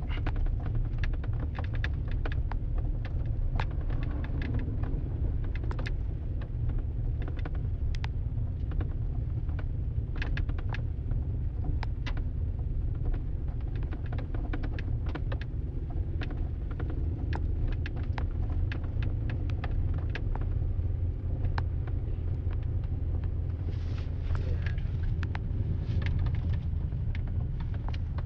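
Car driving, a steady low rumble of engine and road with frequent short, sharp ticks scattered throughout.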